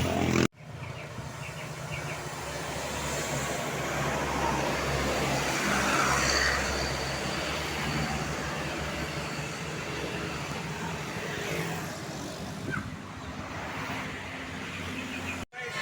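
Road traffic with buses: a steady low engine drone under road and tyre noise, swelling a little toward the middle. The sound cuts out for an instant just after the start and again near the end.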